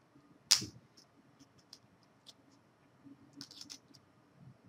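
Small clicks and taps from a laptop display cable's plug being handled and fitted to a replacement screen's socket. There is one sharp click about half a second in, scattered faint ticks, and a quick cluster of clicks a little past three seconds.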